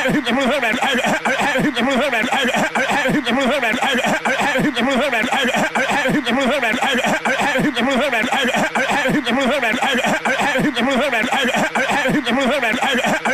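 Cartoon character's voice making a continuous, rapid stuttering vocal noise of quickly repeated syllables, several a second, without a break: Peter Griffin's seizure sounds.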